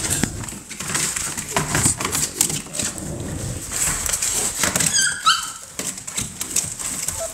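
American bully puppies wrestling in a plastic kiddie pool of wood shavings: claws scrabbling and shavings rustling in quick clicks and scrapes, with one brief high yelp from a puppy about five seconds in.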